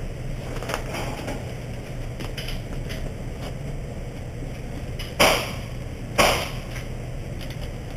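Two sharp cracks about a second apart, over a steady low hum with faint ticks.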